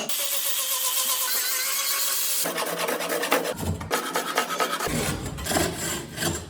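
Hand and power tools working wood: a steady rubbing, sanding-like noise for the first two and a half seconds, then a string of abruptly changing tool noises as one clip cuts to the next.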